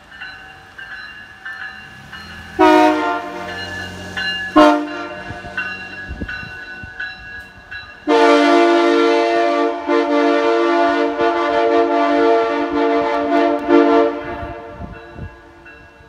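Nathan Airchime K3HA three-chime locomotive air horn blowing its chord: two short blasts about three seconds in, then one long blast of about six seconds from about eight seconds in, dying away near the end.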